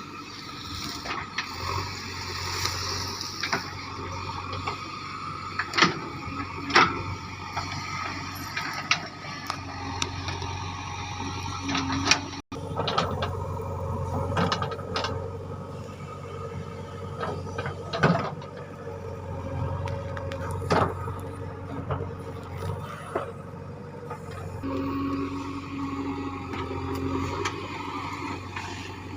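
Diesel engine of a JCB 3DX backhoe loader running steadily under work, with a sharp knock or clank every few seconds.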